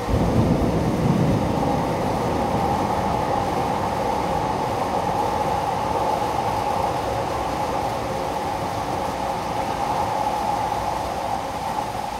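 Torrential rain pouring down in a steady roar. It swells suddenly at the start, with a low rumble for the first couple of seconds.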